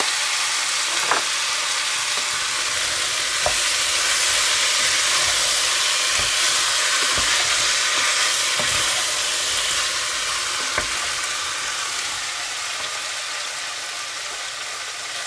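Meat, potatoes and carrots sizzling in a cast-iron Dutch oven as a wooden spatula stirs them, with a few knocks of the spatula against the pot. The sizzle eases off a little near the end, once the stirring stops.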